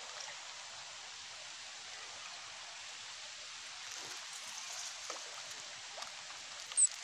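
Steady rush of flowing river water, with a short high-pitched chirp near the end.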